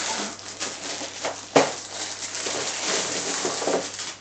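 Clear plastic wrapping crinkling and rustling as it is pulled off an LED light bar, with a sharp crackle about one and a half seconds in.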